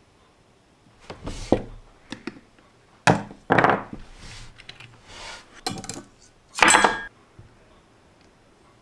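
Metal tweezers clicking and clinking against small plastic LEGO pieces and the tabletop. There is a string of sharp knocks and clicks from about one to seven seconds in; the loudest come about three seconds in and again near seven.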